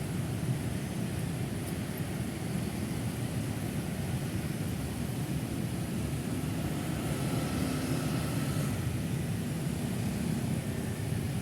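Steady drone of busy city road traffic, cars, buses and motorcycles passing, a dense low rumble of engines and tyres that swells slightly about two-thirds of the way through.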